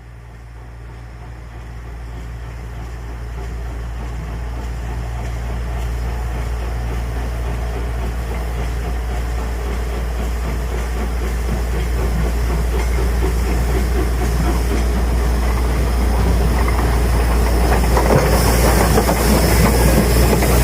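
Diesel locomotive engine running with a steady low drone, growing gradually louder as the train draws nearer, with wheel-on-rail noise building near the end.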